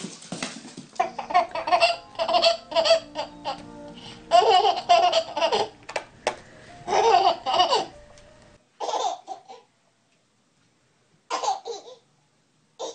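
A baby laughing in a run of short, repeated bursts, then a couple of brief laughs again after a pause near the end.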